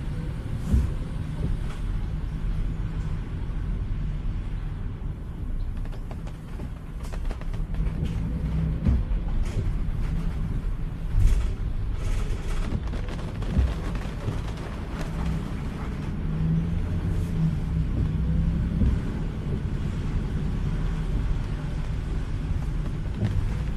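Heard from inside a car moving slowly through heavy rain: a steady low rumble of engine and tyres on wet pavement, with rain on the car and scattered sharp taps.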